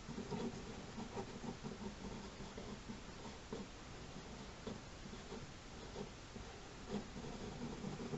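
Sketching on paper: short, irregular scratchy strokes of a drawing tool, fairly faint.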